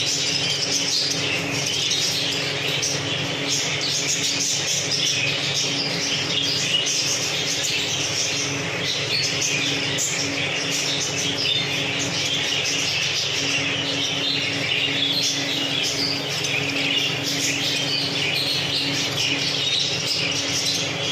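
A flock of budgerigars chattering and chirping continuously, with a steady low hum underneath.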